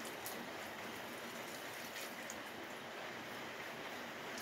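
Steady hiss with a few faint light clicks of small metal paint tins being handled.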